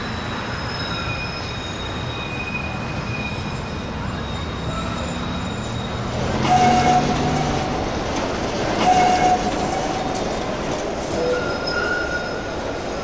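A train running on its rails, with steady running noise and thin, high wheel squeals. Two louder squealing surges come about halfway through.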